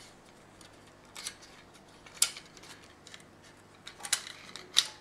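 Metal parts of a camping gas lantern clicking and clinking as it is handled while its mantle is taken off: a few sharp, separate clicks, the loudest about two seconds in and another near the end.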